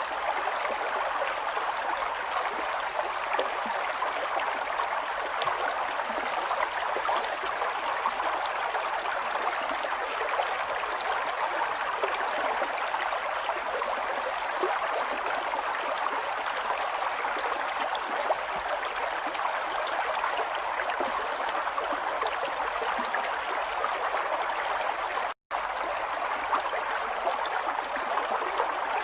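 Flowing water, a steady babbling stream sound with fine splashing and trickling. It cuts out for an instant about 25 seconds in.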